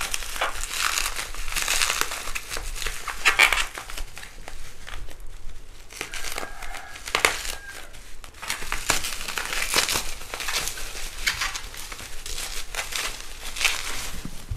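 Plastic packaging crinkling and crackling in irregular rustles and snaps as it is handled and torn open.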